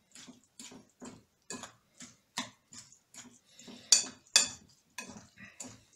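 Metal spoon stirring grated celery and yogurt in a ceramic bowl, scraping and clinking against the bowl about two and a half times a second. Two louder clinks come about four seconds in.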